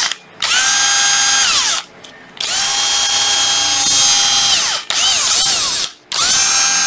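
National 9.6 V cordless drill driver test-run with no load, three times. Each time its motor spins up with a rising whine, holds a steady pitch, then winds down after the trigger is released. The third run starts near the end.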